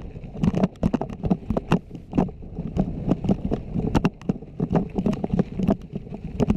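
Loaded mountain bike rattling over a rough rocky gravel track: tyres crunching over stones with irregular sharp knocks, several a second, from the bike and its luggage jolting.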